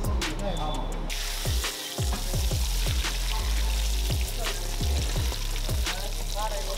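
Whole marinated chicken deep-frying in a wok of hot oil: a steady sizzle that starts about a second in. Background music with a deep, regular beat runs underneath.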